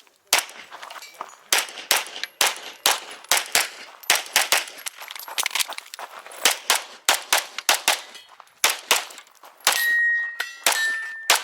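Rapid strings of 9mm pistol shots from a Canik Rival, fired in quick pairs and runs with short pauses between, with the ring of hit steel targets; near the end two steady high rings sound one after the other.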